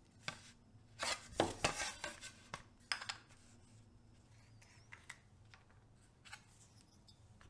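Light clatter and taps of thin birch plywood wing panels and a wooden disc being handled and set down on a cutting mat: a cluster of knocks in the first three seconds, then a few scattered taps.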